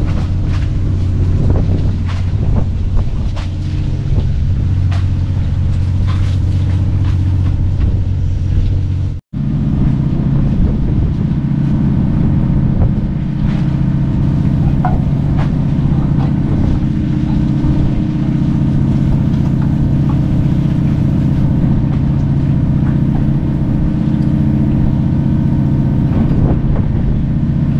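Fishing boat's engine running with a steady low drone, with scattered light knocks over it in the first part. About nine seconds in the sound breaks off for an instant and resumes with the drone a little higher in pitch.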